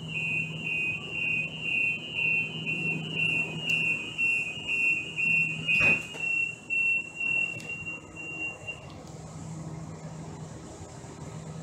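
Door-closing warning beeps on a Siemens S200 LRV4 light rail car, rapid and high-pitched. A single thump comes about six seconds in as the door shuts, and the beeping fades out a few seconds later over a steady low hum from the car.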